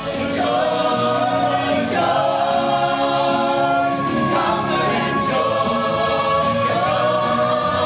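A group of voices singing together over instrumental accompaniment, holding long chords, with a high note sustained through the second half.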